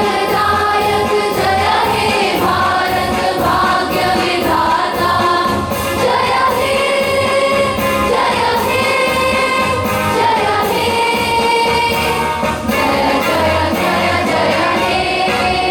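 A group singing the national anthem in unison with instrumental accompaniment, in long held, gliding notes over a steady low beat.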